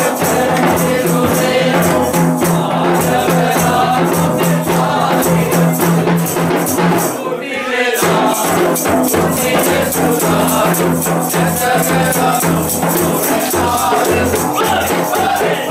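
A group of carolers singing a Christmas carol together, with shaken percussion keeping the beat. The sound dips briefly about halfway, then the singing carries on.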